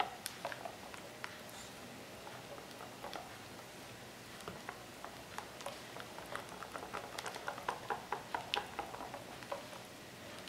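Silicone-coated whisk beating a thin batter in a stainless steel bowl: quick wet slaps and light ticks of the wires against the bowl, coming thickest about seven to nine seconds in.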